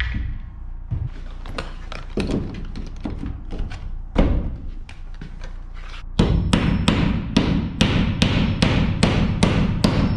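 Hammer blows nailing electrical boxes onto wooden wall studs. There are scattered knocks with a heavy blow about four seconds in, then a steady run of about three strikes a second over the last four seconds.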